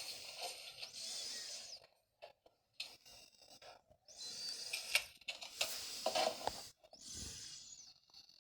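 Rustling and scraping of objects being handled, in short spells broken by brief quiet gaps, with a few sharp clicks.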